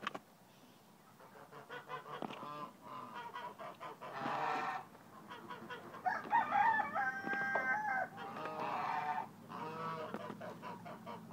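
Agitated small rooster giving repeated harsh calls, with one longer crow about six seconds in that lasts about two seconds.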